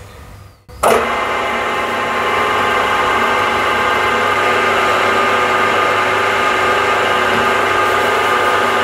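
Milling machine spindle running with a long drill bit, drilling a pilot hole for a valve guide into a cast cylinder head. It starts suddenly about a second in, then holds a steady hum of several even tones.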